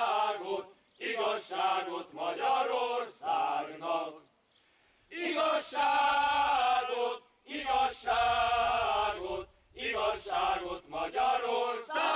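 Men's choir singing unaccompanied in Hungarian, in phrases broken by short breaths, with a longer pause about four seconds in.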